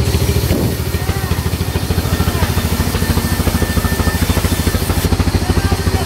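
Stationary diesel engine driving a sawmill band saw, running with a fast, even beat. Over it, a high hiss of the blade cutting through a plank, which stops about five seconds in.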